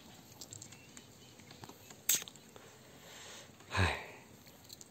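A sharp click about two seconds in, then a short sniff close to the microphone about a second before the end, over a faint background.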